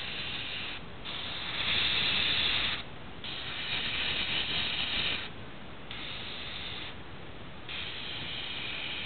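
Airbrush spraying paint in a series of hissing bursts of one to two seconds each, switched on and off by the trigger, the loudest burst about two seconds in.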